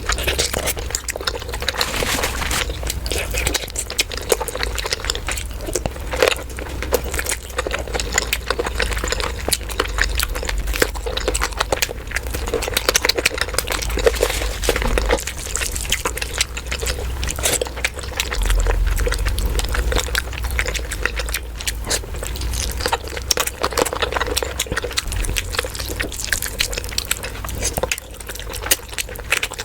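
Close-miked wet chewing, smacking and slurping of someone eating chicken curry, sped up to double speed: a dense, continuous run of small clicks and squelches.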